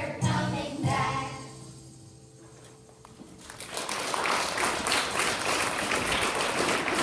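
A children's choir singing with backing music ends its song about a second in, the music fading away. After a short lull, audience applause starts about three and a half seconds in.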